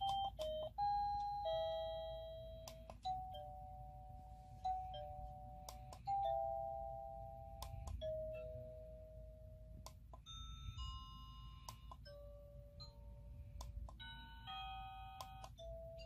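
Campark plug-in wireless doorbell chime playing a series of short electronic chime melodies, each note struck sharply and fading away. The tune changes partway through, with a higher-pitched melody starting about ten seconds in.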